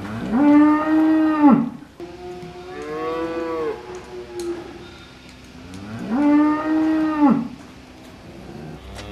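Cow mooing: three long moos, the second one quieter.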